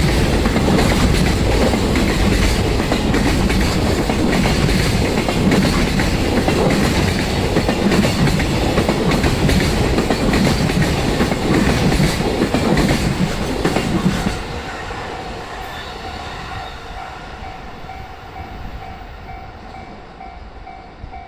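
A freight train's container wagons roll past over a level crossing with a loud rumble and clickety-clack from the wheels on rail joints. About two-thirds of the way through, the end of the train passes and the rumble drops away and fades. The crossing's warning bell is left ringing with a steady repeating ding.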